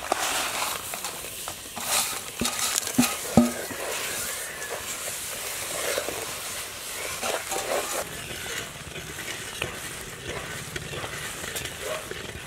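Lumps of palm jaggery scraped off a steel plate into a clay pot of hot water, with a few sharp knocks in the first few seconds. Then a ladle stirs the bubbling, sizzling jaggery syrup in the clay pot.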